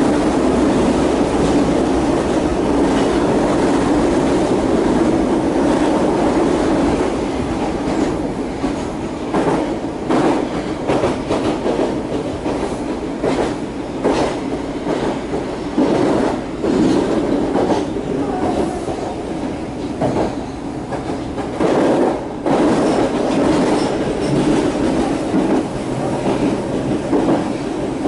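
Kita-Osaka Kyuko electric train running, heard from inside the front car: a steady rumble of wheels on rail that turns quieter about seven seconds in, then a run of irregular clacks as the wheels cross points and rail joints.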